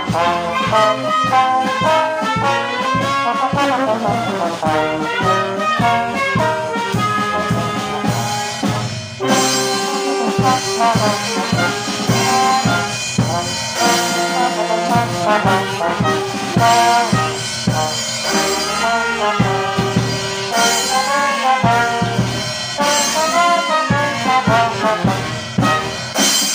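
Trombone playing a march close up, over a band of brass instruments with several parts sounding together.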